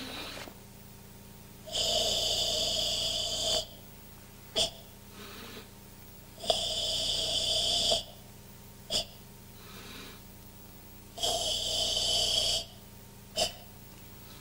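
A karateka breathing forcefully through the throat, ibuki-style, while performing the Kyokushin kata Tensho. There are three long drawn breaths of about one and a half to two seconds each. Each is followed about a second later by a short sharp breath.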